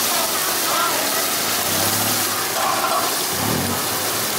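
Gas wok burner flaring under a red-hot wok, a steady rushing hiss, with faint voices in the background.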